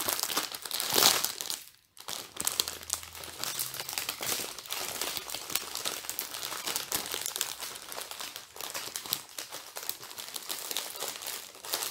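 Small clear plastic bags of round diamond-painting drills handled and rustled, a dense crinkling that stops for a moment just before two seconds in and then carries on.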